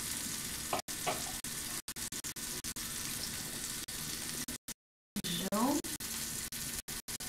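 Food sizzling steadily in the small pans of a tabletop gourmet set, an even frying hiss with a few abrupt dropouts in the recording.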